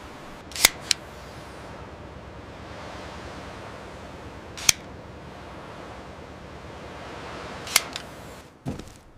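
Four short, sharp clicks or taps: two close together about a second in, one near the middle and one near the end, over a steady background hiss.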